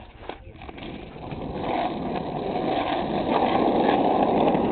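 Skateboard wheels rolling on rough asphalt. The rumble builds from about a second and a half in as the board gets going, after a couple of light knocks at the start.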